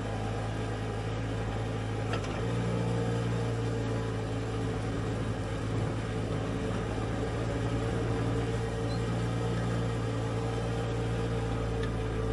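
Mini excavator's diesel engine running steadily under load, with a constant low hum, and a faint knock about two seconds in.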